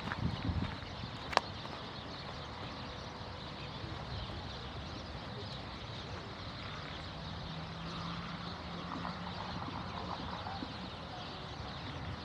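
Outdoor ambience of steady wind with canal water lapping, and one sharp click about a second and a half in.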